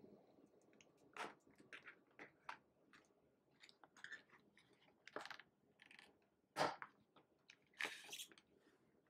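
Clear plastic binder cover and sleeves crinkling and crackling as they are bent and handled, in a string of short, irregular crackles. The loudest is a sharp snap about two-thirds of the way through, followed by a longer crinkle near the end.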